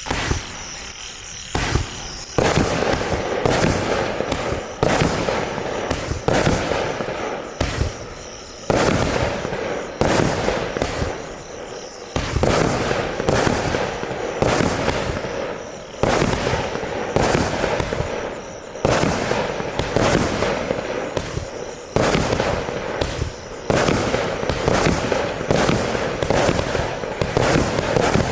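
Azurro AC25-36-4 'Argento' firework battery (cake) firing shot after shot in quick succession for the whole stretch, from about a second in. Each sharp report runs into a dense crackle of bursts.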